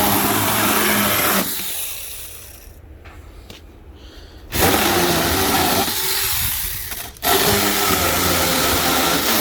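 Brushed-motor 21 V cordless mini pruning chainsaw running in three trigger bursts while cutting up cardboard. It runs for about a second and a half and winds down, starts again near the middle, cuts out briefly about seven seconds in, then runs again.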